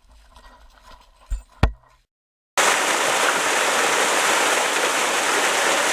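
Two short low thumps over a faint outdoor background, then, after a brief gap of dead silence, the loud steady rush of a waterfall starts abruptly and carries on.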